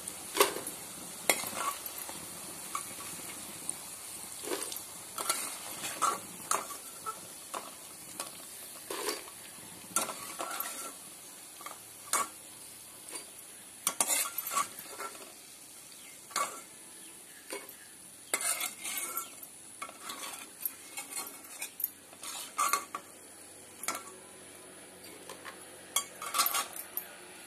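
Bitter gourd slices sizzling in hot oil in a metal kadhai. Over the sizzle, a perforated metal skimmer scrapes and clinks irregularly against the pan as the slices are lifted out.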